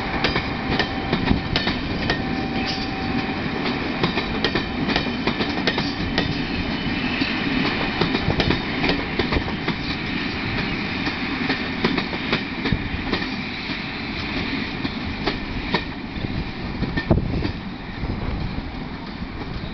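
Passenger coaches of a departing train rolling past over rail joints and points: a steady rumble with repeated wheel clicks and clacks, easing slightly near the end as the train draws away.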